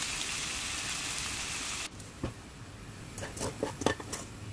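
Bacon frying in oil in a pan, a steady sizzle that stops abruptly about two seconds in. After it come a few light clinks and knocks of a utensil against the pan.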